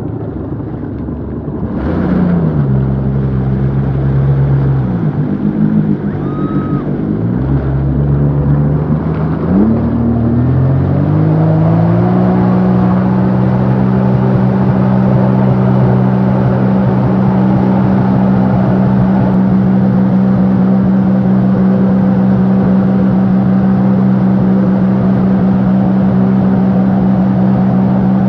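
Motorboat engine towing a banana boat. It revs up and down several times, then climbs about eleven seconds in and holds a steady high pitch at towing speed.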